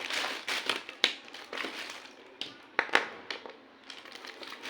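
Plastic packaging rustling and crinkling as small plastic toy pieces are handled, with several sharp clicks and taps, the loudest about a second in and a few around three seconds in.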